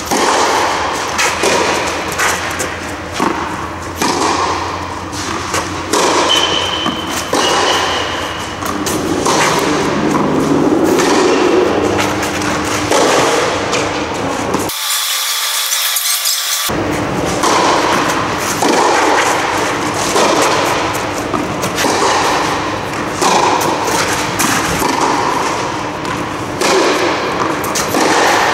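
Tennis rally: a ball struck by rackets and bouncing on a clay court, repeated thuds echoing in a large indoor hall. About halfway the sound drops to a thin hiss for a couple of seconds.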